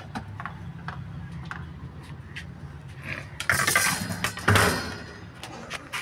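Metal clattering and scraping from a refrigerator's black wire-on-tube condenser coil being handled, with light clicks and two loud scraping bursts about three and a half and four and a half seconds in.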